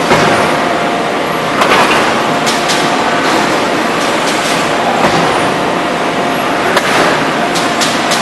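Forging press and manipulator machinery running: a loud, steady mechanical din with a constant hum, with a few sharp knocks about two, five and seven seconds in.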